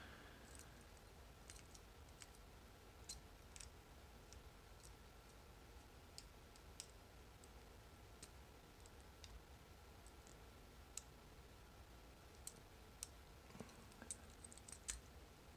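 Faint, scattered metal clicks from a lock pick working the five pin tumblers of an old Corbin Master Ring padlock under tension, with a quick run of clicks near the end.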